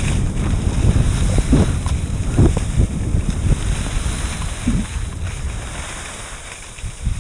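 Wind buffeting a moving skier's camera microphone as a gusty low rumble, over a steady hiss of skis sliding on snow; both die down near the end.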